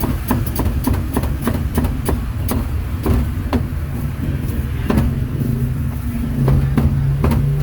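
Cleaver chopping pork on a cutting board: sharp strikes about four a second at first, then fewer and further apart. A steady low rumble of traffic lies underneath.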